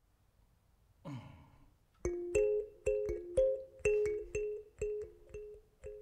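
Kalimba starting a song: sharply plucked, ringing tines, about two notes a second on a few repeating pitches, beginning about two seconds in. About a second in, a brief sound slides downward in pitch.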